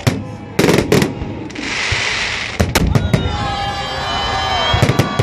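Fireworks salute: shells bursting with sharp bangs, a cluster about a second in and another about three seconds in, with a hiss between them.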